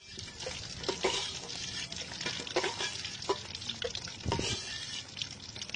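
Boiled eggs frying in hot oil in an aluminium pot: a steady sizzle, with short scrapes and knocks of a metal spatula scattered through it.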